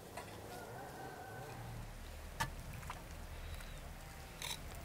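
Quiet outdoor ambience with a low rumble and faint animal calls in the first two seconds. Two sharp clicks come around the middle, then a metal serving spoon clinks against the saj pan and plate near the end.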